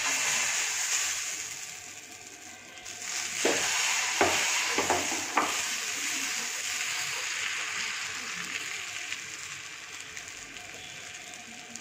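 Green gram dosa batter sizzling as it is poured onto a hot dosa griddle and spread in circles with a steel ladle. The sizzle starts suddenly and is loudest at first. It swells again a few seconds in with four sharp clicks as the ladle spreads the batter, then slowly dies down.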